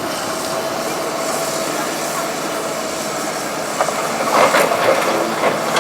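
Cat 319D hydraulic excavator running: a steady machine noise with a faint steady whine, and a cluster of metallic knocks and clanks in the second half.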